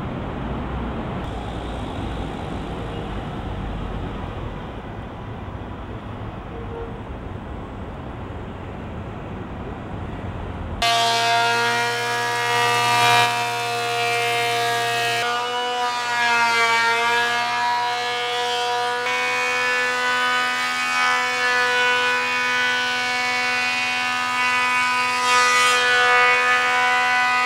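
Traffic noise on a wet city street for the first eleven seconds or so. The sound then changes suddenly to a woodworking thickness planer with a dust-collection hose running, a steady machine whine of several tones whose pitch wavers briefly a few seconds after it starts.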